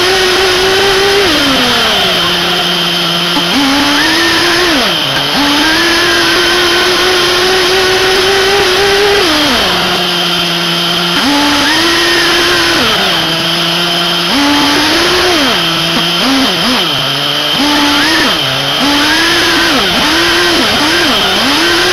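SH PT21-P3 3.5 cc two-stroke nitro glow engine of a 1/8 RC buggy, heard from on board, revving high and dropping back to idle several times as the throttle is worked, with a run of short quick blips near the end.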